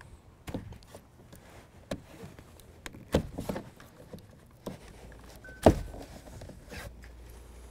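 Plastic wiring connectors being unclipped and pulled out of a Ford F-250's power window and door lock switch panel: a series of sharp clicks and knocks, the loudest a little past halfway.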